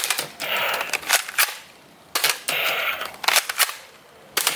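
Toy blaster gun shots: several sharp snaps and two short rattling bursts of about half a second each.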